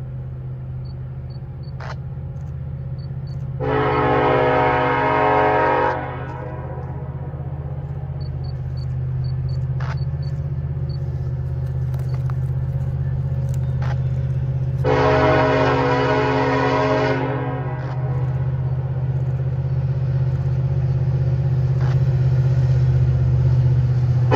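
Union Pacific SD70AH diesel locomotive approaching slowly, its engine drone growing louder, as it sounds its air horn in two long blasts: one a few seconds in and another about two-thirds of the way through.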